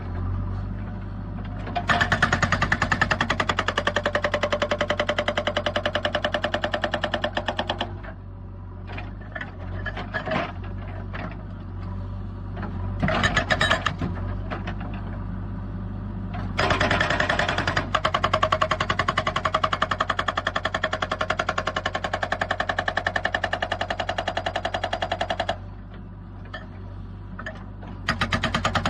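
Excavator-mounted hydraulic rock breaker hammering stone in rapid, even strokes, in two long spells with short bursts between, over the excavator's steady low engine hum.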